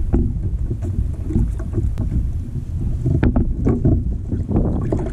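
Wind buffeting the camera microphone on a kayak on choppy water, with water lapping and slapping against the hull and a cluster of small knocks and splashes about three seconds in.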